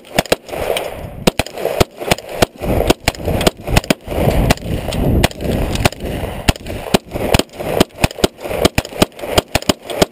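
Rapid semi-automatic gunfire from a handgun and a second, carbine-style gun: dozens of sharp shots at uneven spacing, some in quick pairs and clusters.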